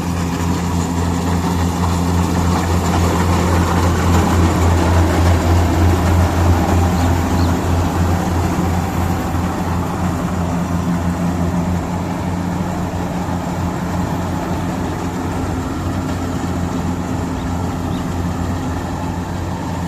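Kubota DC-60 rice combine harvester running with a steady low diesel engine hum under a broad mechanical rush. It is loudest about five seconds in and slowly fades after that.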